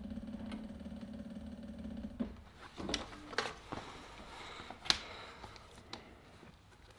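Cobra Class 3 industrial leather sewing machine stitching slowly through thick vegetable-tanned leather, its brushless servo motor humming steadily, then stopping about two seconds in. Knocks and rustles of the heavy leather belt being moved follow, with a sharp click about five seconds in, the loudest sound.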